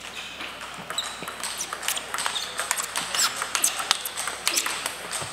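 Table tennis rally: the ball clicking off the bats and the table in quick succession, the hits coming thicker from about a second in.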